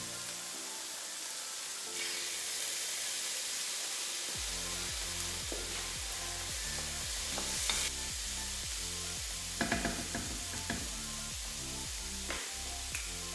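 Mushrooms, onion and garlic sizzling in olive oil in a frying pan, with a few sharp clicks of a utensil against the pan as the food is stirred, about halfway through and again a little later. Background music comes in about four seconds in.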